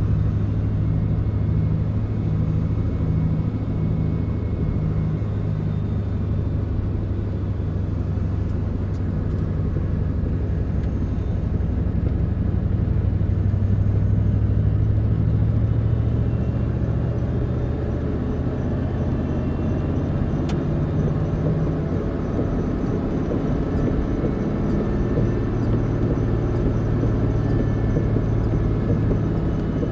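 Pickup truck driving on a wet road, heard from inside the cab: a steady low drone of engine and road noise.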